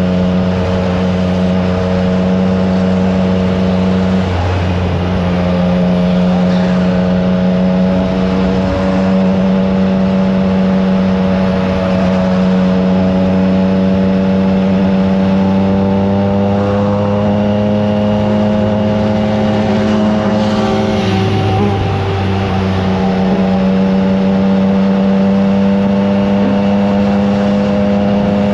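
Triumph Trident 660's inline three-cylinder engine through a FireTong aftermarket exhaust, running steadily at cruising speed under the rider. The engine note dips briefly and picks back up twice, once about five seconds in and again past the twenty-second mark.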